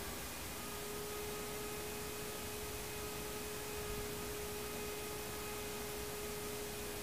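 Room tone: a steady hiss with one constant humming tone over it.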